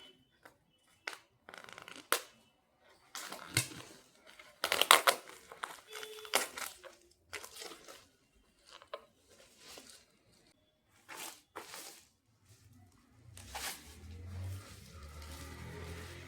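Packaging being torn and crinkled by hand in irregular rustling bursts with small clicks, loudest about five seconds in. Soft background music comes in near the end.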